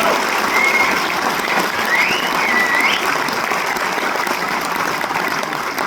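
Concert audience applauding, with a few high cheers in the first three seconds.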